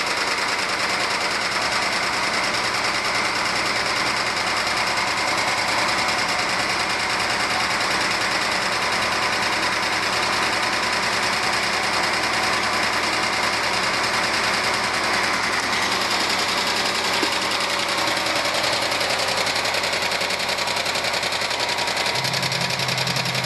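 Renault Clio engine idling with a fast, even ticking clatter from the top end. Mechanics have put it down variously to valve clearance, too little oil reaching the top of the engine through clogged oil galleries, and piston skirt slap.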